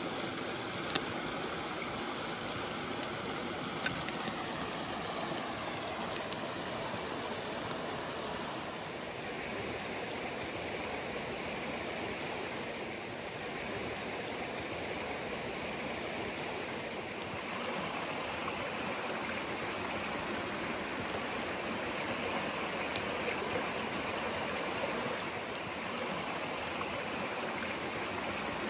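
Mountain stream running over rocks: a steady rush of water, with a few light clicks in the first few seconds.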